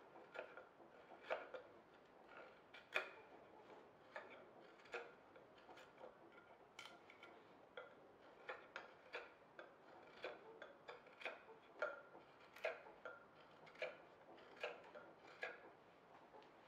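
A small knife paring a hardwood bench leg in short strokes: a faint, irregular series of crisp little cuts and clicks, about one a second.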